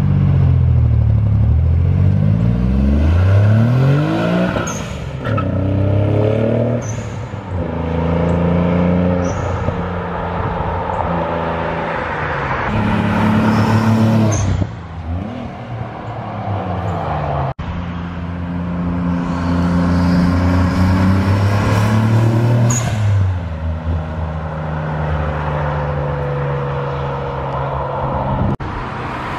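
Nissan 300ZX twin turbo's 3.0 L V6 through an HKS Hi-Power cat-back exhaust, accelerating hard and driving past. Engine pitch rises through the gears and drops at each shift, over several drive-bys cut together.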